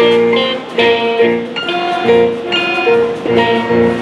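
A student band playing live under a conductor. Its held chords change about once or twice a second.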